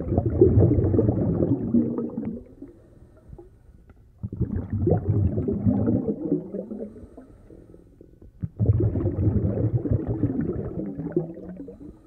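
Muffled underwater rumbling and bubbling of moving water, in three surges a couple of seconds long, about four seconds apart.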